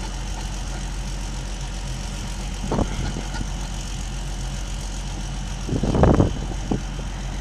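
An engine idling steadily in the background, with a short knock about three seconds in and a louder clunk near the end as the threaded bolt and axle parts are worked into place.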